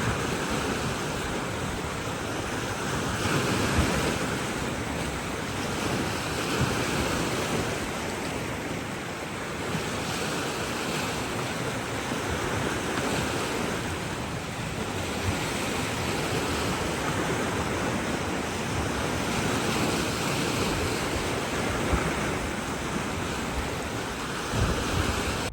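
Surf washing on a shore: a steady rush of waves that swells and eases every few seconds, with wind buffeting the microphone.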